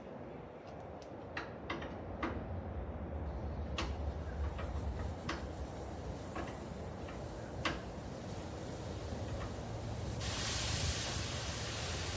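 Scattered metallic clicks and knocks of work on a car's engine bay over a low steady hum. A loud steady hiss starts about ten seconds in.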